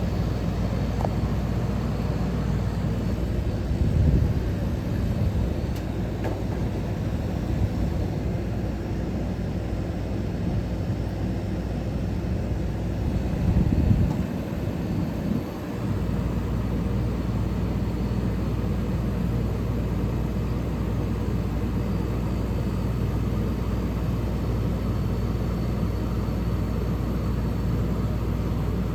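1977 GE Superthrust 10,500 BTU window air conditioner running: a steady fan rush over a low hum from its rotary compressor. Two brief louder thumps come about 4 and 14 seconds in, and the low hum dips for a moment just after the second.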